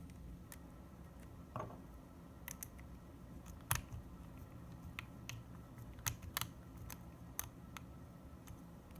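Light, irregular clicks and taps of a Phillips screwdriver and small mounting screws against an internal hard drive's metal case as the screws are driven in by hand, about a dozen sharp clicks in all.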